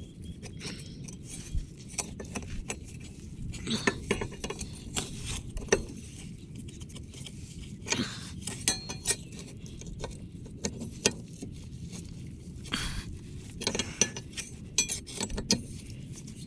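Irregular metallic clinks and taps of hand tools on a boat propeller's shaft nut as it is tightened, over a low steady rumble.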